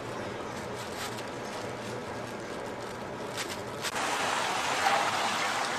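A steady hiss that grows louder about four seconds in, with a few faint clicks just before.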